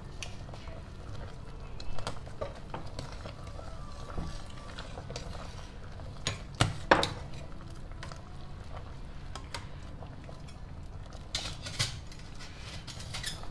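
A metal ladle clinking and scraping against a stainless steel pot of soup as it is stirred: several scattered clinks, the loudest about seven seconds in.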